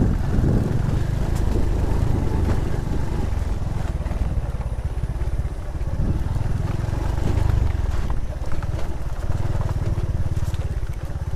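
Motor scooter engine running at low, steady revs as it rides a rough dirt track, with scattered knocks and rattles from the bumps.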